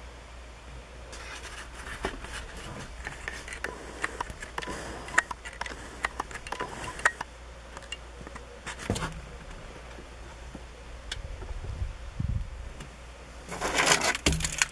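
Handling noise in a pickup's cab: scattered light clicks and rustles over a low steady hum, with a louder burst of rustling near the end.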